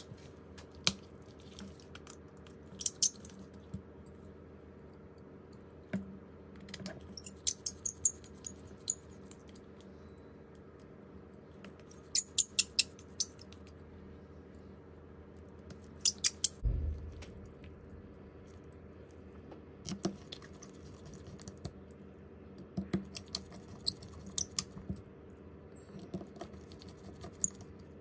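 Small hand tools and phone parts clicking and tapping in short bursts of several sharp clicks every few seconds, over a steady low hum, with one dull thump about two-thirds of the way through.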